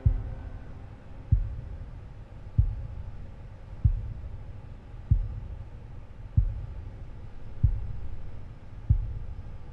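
Slow, deep heartbeat-like thumps in a suspense soundtrack, a single beat about every 1.3 seconds, eight in all, over a low steady drone.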